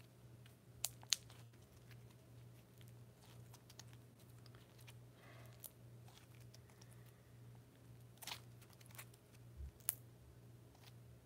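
Quiet room tone with a low steady hum, broken by sharp clicks and faint crackles of a handheld phone being handled: two clicks about a second in and a few more near the end.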